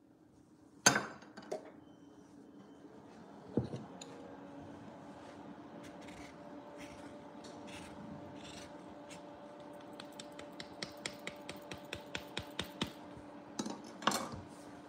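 Lemon rubbed over a rasp grater for zest: a run of short scraping strokes that gets quicker, about five a second, later on. A sharp clack about a second in is the loudest sound.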